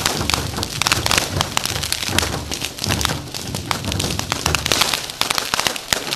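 Fireworks going off in quick succession: a dense, continuous run of sharp cracks and pops from fountains and aerial shells.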